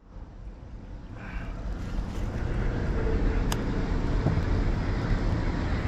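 Steady low rumbling outdoor noise on the river, fading in over the first couple of seconds after a cut.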